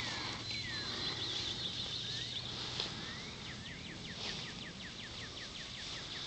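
Songbirds singing in open country: short falling whistles, then a quick run of about a dozen falling notes about halfway through, over a faint outdoor background.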